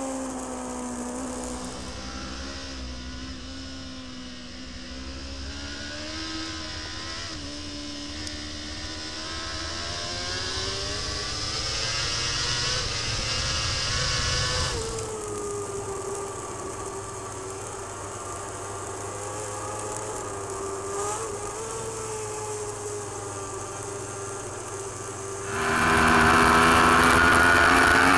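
Four-cylinder racing superbike engines at full race speed, heard from onboard cameras with a rush of wind, the engine note rising and falling with the throttle. The sound cuts abruptly from one bike to another twice, and is loudest near the end.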